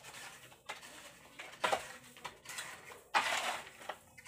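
A shovel scraping and digging into a heap of soil and rubble, irregular gritty scrapes with a sharp one about a second and a half in and a longer, louder scrape at about three seconds.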